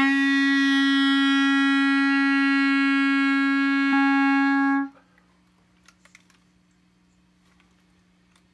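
B-flat clarinet holding one long, steady written E-flat for about five seconds, then stopping cleanly.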